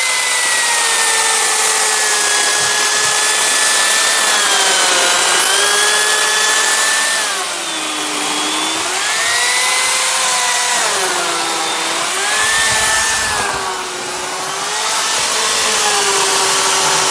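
Ryobi RCS2340B corded electric chainsaw running with a steady high motor whine. Twice, in the middle and again a few seconds later, the pitch drops for a second or two and then climbs back as the motor is loaded, as when the chain bites into a log.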